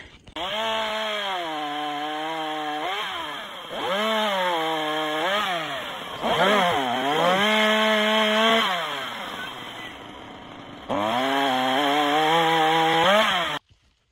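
Chainsaw cutting through a fallen tree's limb, its pitch dropping each time the chain bites into the wood and rising again as it frees up, several times over. It stops abruptly near the end.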